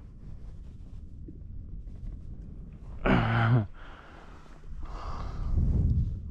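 A man's short, voiced sigh about three seconds in, the loudest sound here. A rushing, breath-like noise swells near the end over a steady low rumble.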